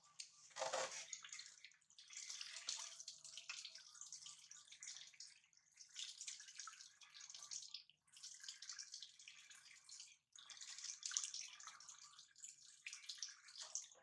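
Water from a plastic barrel tap splashing and trickling over a baby monkey and the hands washing it, dripping into a plastic basin. It comes in stretches a few seconds long with short breaks.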